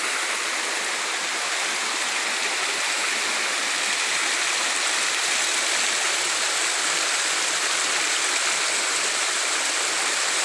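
Steady rush of water from a mountain stream and waterfall, an even hiss with no breaks.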